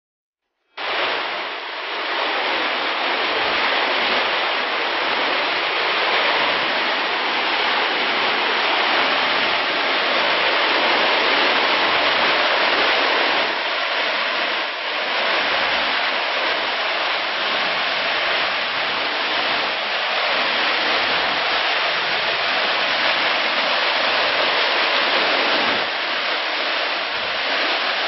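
Whitewater of McDonald Creek rushing over rocks and falls, a steady noise of running water that starts abruptly about a second in.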